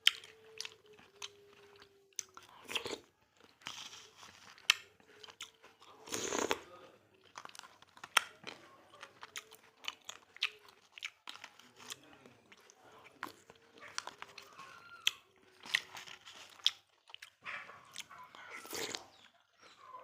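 Close-miked eating: wet chewing, smacking and crunching of sweet melon in an iced durian dessert, many short irregular clicks of the mouth.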